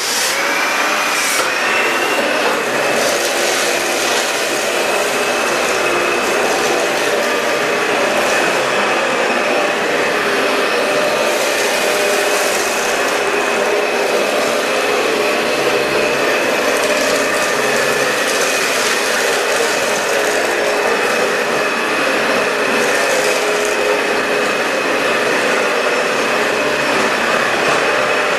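Dyson DC65 upright vacuum cleaner switched on and running steadily while vacuuming potting soil off a hard floor. Its motor whine rises in pitch over the first two seconds as it spins up, then holds.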